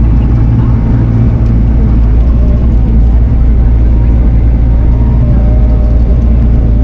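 Diesel engine of a Bobcat compact track loader or mini excavator running steadily under work, a loud, even low drone.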